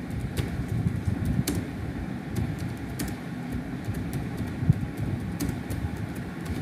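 Computer keyboard keys clicking at an irregular pace as a word is typed, over a steady low rumble of background noise.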